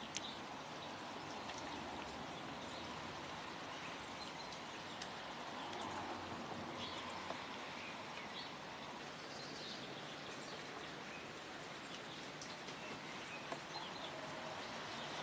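Quiet outdoor ambience: a steady background hiss with faint bird chirps now and then and a few small clicks.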